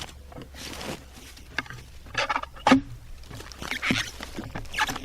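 Irregular knocks, scrapes and crunches of a log being rolled over on the ground.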